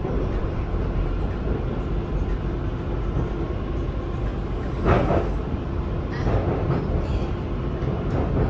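BTS Skytrain train running, heard from on board: a steady rumble with a brief louder burst about five seconds in.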